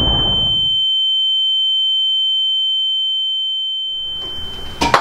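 Ear-ringing sound effect after an explosion: one steady, high-pitched ringing tone, with the blast's rumble dying away in the first second. The ringing slowly fades and cuts off near the end as outdoor background sound returns, with a sharp knock at the very end.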